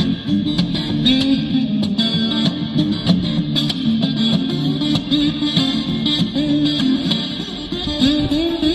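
Music led by a guitar, playing steadily with a run of plucked notes.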